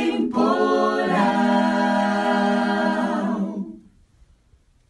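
Small mixed group of men and women singing a Portuguese hymn a cappella, holding its final chord; the chord shifts about a second in and fades out near the end.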